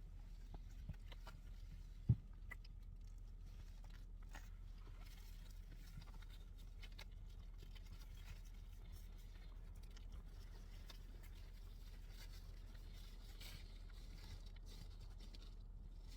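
Quiet interior with a low steady hum, faint scattered clicks and rustles, and one dull thump about two seconds in.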